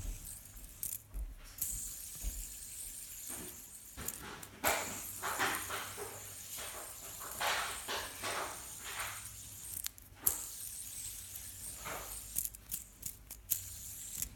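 Fast-forwarded audio of a fidget spinner being spun and handled: jumbled clicks and rattles over a steady high hiss, with smeared noisy bursts in the middle.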